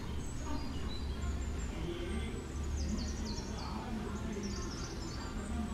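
Outdoor ambience with birds chirping: short, high, repeated calls, busiest about halfway through, over a steady low hum.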